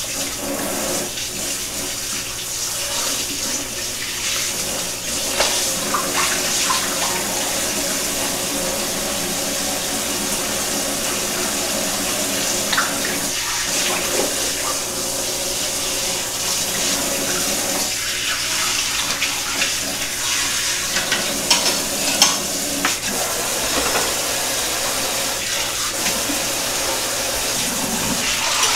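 Kitchen faucet running steadily into the sink while things are rinsed under the stream, with a few light knocks and clinks.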